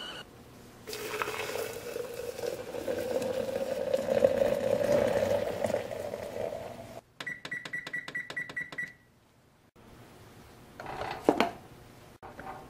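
Hot water poured from a kettle into a glass French press over coffee grounds, the pitch of the filling rising as it fills. Then a quick run of about eight electronic keypad beeps, and near the end a sharp metal clink as the press's lid goes on.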